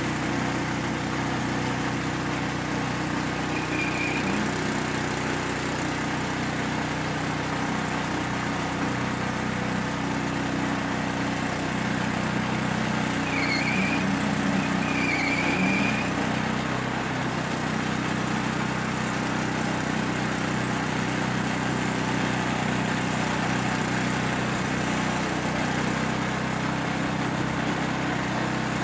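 Woodland Mills HM122 portable band sawmill's small gas engine running steadily as the band blade cuts a spruce log into 2x10 lumber. A few short high chirps sound briefly over it, once near the start and twice around the middle.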